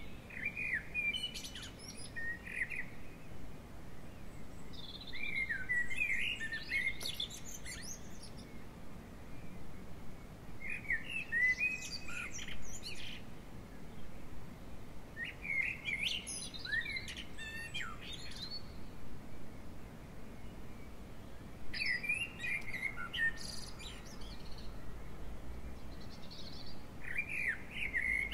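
A songbird singing: a short, fast, high-pitched phrase of about two seconds, repeated roughly every five seconds, six times.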